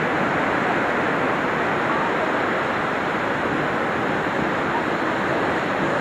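Kaieteur Falls, a large waterfall, rushing with a steady, even noise.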